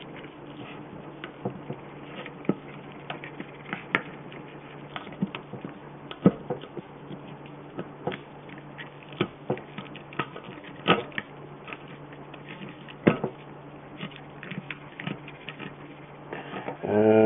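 Irregular small clicks and snaps of wood fibres popping and of a tool working against the wood, as a cut-out piece is pried and pushed out of a wooden netting-needle blank; a steady low hum lies underneath.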